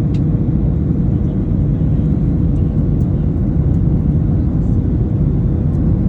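Steady low rumble of a Boeing 737's engines and airflow heard inside the passenger cabin, with a faint steady hum held on one pitch above it.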